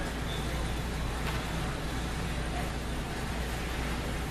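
Steady indoor ice-rink background noise: a low hum under an even hiss, with hockey play going on at the far end of the ice.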